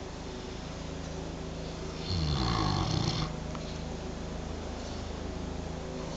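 Sleeping domestic pig snoring: one loud snore about two seconds in, lasting about a second and falling in pitch, then quieter breathing.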